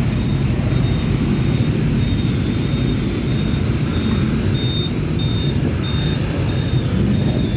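Steady din of dense city street traffic, mostly motorbikes and scooters with some cars, many small engines running together. A thin high beep repeats about twice a second through the middle of it.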